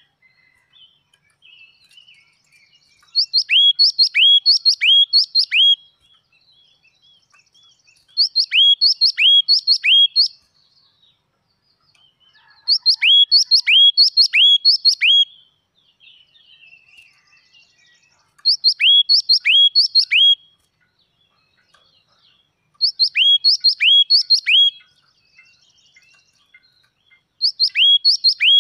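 Yellow-cheeked tit singing: six phrases, one about every five seconds, each a fast run of four to six loud, clear notes that sweep downward in pitch, with faint soft calls in the gaps.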